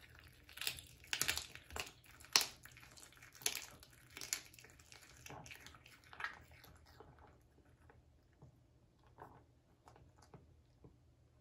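A cat chewing and licking raw food, with a run of irregular sharp crunches that dies away about seven seconds in, leaving a few faint clicks.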